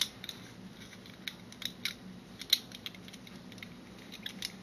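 Light, scattered clicks and taps of a small plastic smartphone tripod being handled, a few every second, with one sharper click about two and a half seconds in.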